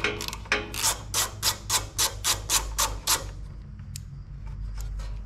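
T-handle socket wrench ratcheting on a 10 mm nut: a quick run of about ten clicking strokes, roughly four a second, stopping about three seconds in, over a steady low hum.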